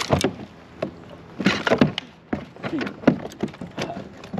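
A run of irregular knocks and thumps on the hull of an Old Town Sportsman 106 fishing kayak, several sharp ones every half second or so, while a hooked bass is fought alongside.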